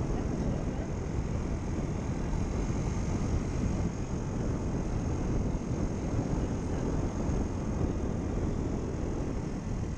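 Wind rushing over the microphone of a moving scooter, with the scooter's engine running steadily underneath. The level stays even, with no sudden events.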